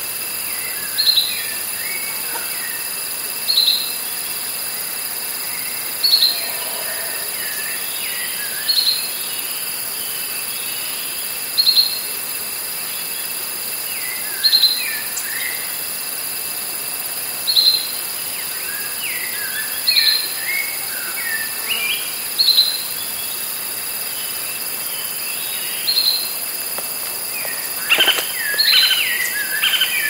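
Evening rainforest ambience: cicadas stridulating in a steady high drone, with one bird repeating a short high call about every two and a half seconds and other birds calling in between, busiest near the end.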